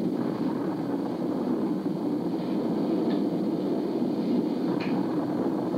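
Steady, unbroken low rumbling noise, the mock rocket roar of a pretend shuttle liftoff.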